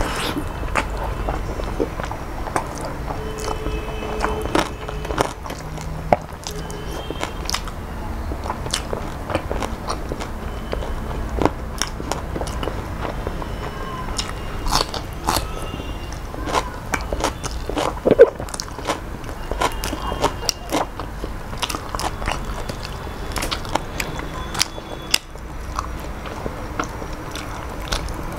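Close-miked mouth sounds of a person chewing a handful of shrimp pulao and fried fish eaten by hand, with many sharp wet clicks and smacks. The loudest click comes about two-thirds of the way through.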